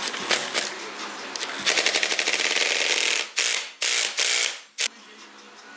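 Cordless impact driver hammering down the nut on a scooter's clutch assembly. A rapid rattling run of impacts lasts about a second and a half, then comes four short bursts.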